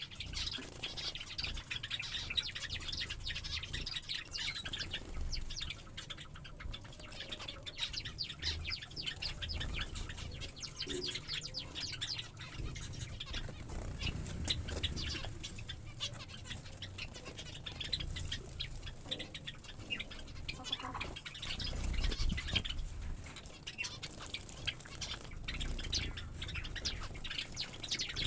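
A flock of small finches and Java sparrows chirping rapidly and continuously, with wings fluttering and a steady low rumble underneath.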